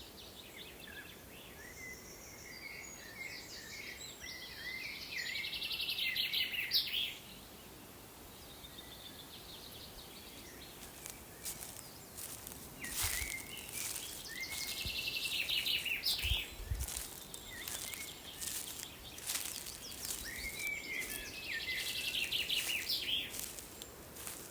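A songbird singing a short trilled phrase three times, each about two to three seconds long, over faint background hiss. Scattered light clicks and a couple of soft thumps in the middle, typical of footsteps on a forest path.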